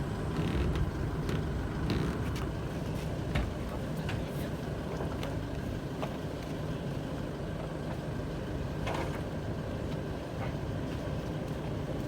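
A motor vehicle running steadily with a constant low engine hum, with a few faint clicks.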